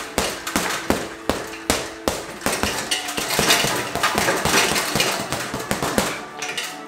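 Boxing gloves punching a leather heavy bag: a steady run of blows for the first couple of seconds, then a faster, denser flurry from about two and a half seconds in, easing off near the end.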